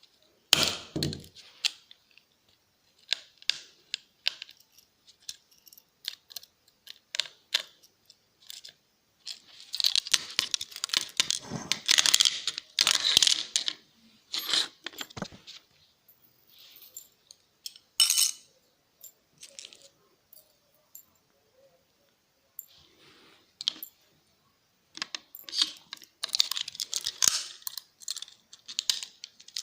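Small metal hard-drive parts and tools clicking, clinking and scraping while a laptop hard drive's neodymium magnet is pried out. There are scattered clicks throughout, with longer spells of scraping about ten seconds in and again near the end.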